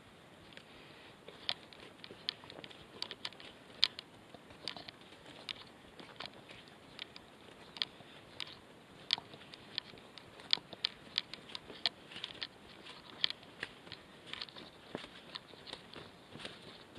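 Footsteps crunching on a stony dirt mountain path: irregular sharp crunches and clicks of boots on gravel and twigs, a few a second.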